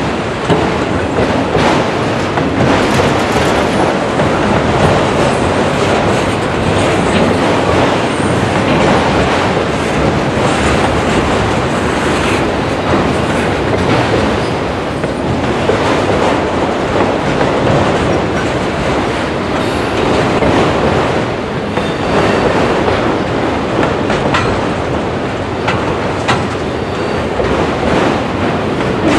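Multilevel autorack freight cars rolling past close by: a steady rumble of steel wheels on the rails, with irregular clicks as the wheels cross rail joints.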